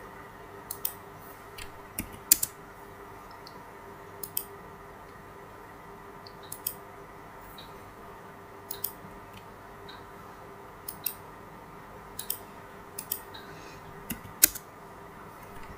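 Computer mouse and keyboard clicks, single or in quick pairs every one to two seconds, the loudest about two and a half seconds in and near the end, over a faint steady hum.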